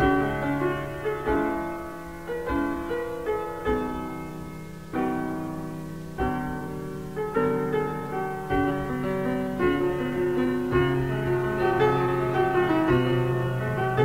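Slow piano music: notes and chords struck and left to ring over low held bass notes.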